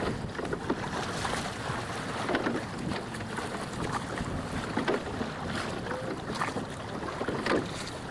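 Water splashing and rushing along the hull of a small open boat under way, with wind buffeting the microphone and irregular sharper splashes about once a second.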